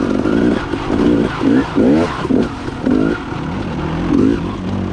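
Dirt bike engine revving up and down in short bursts of throttle, rising and falling about every half second, as the bike picks its way over rough, rocky trail.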